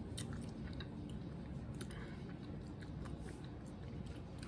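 Close-up chewing of soft, slick chitterlings (pork intestines), with a few faint, scattered clicks and smacks.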